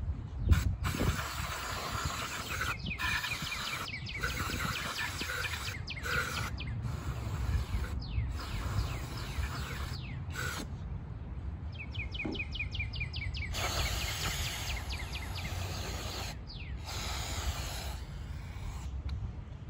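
Aerosol spray can hissing in repeated bursts of one to a few seconds with brief pauses, sprayed through a straw into a push lawn mower's engine. A steady low rumble runs underneath.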